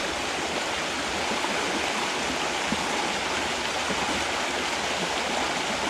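A small creek's water running steadily, an even rushing flow.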